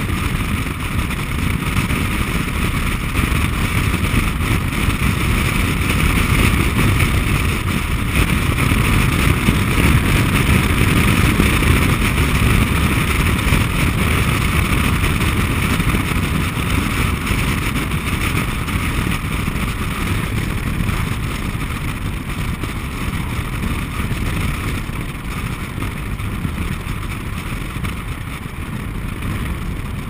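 Steady road and wind noise of a car driving along, picked up by a microphone on the outside of the car: tyre rumble and a constant rush of air. It gets a little louder a few seconds in and eases off near the end.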